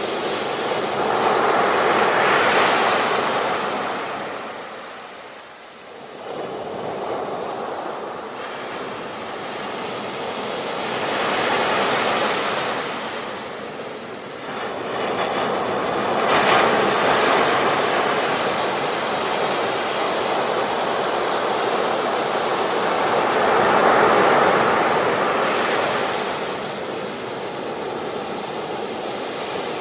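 Ocean waves breaking on a beach: surf swells to a rush, fades and builds again, with about four big breakers.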